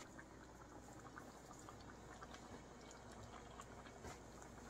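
Faint bubbling of a coconut-milk curry simmering in a wok: a steady scatter of small pops and ticks.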